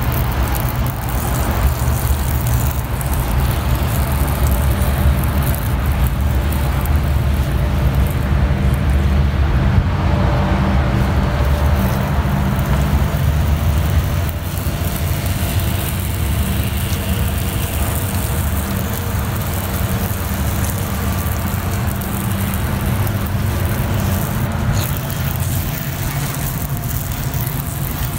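Powered sprayer running steadily while spraying mold cleaner through a long wand: an even, low mechanical hum that eases a little about halfway through.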